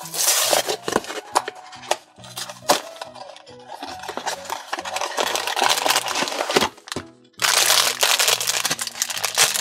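A cardboard mystery-figure box being opened and its black foil blind bag crinkling loudly as it is handled and torn open, the crinkling densest near the end, over background music.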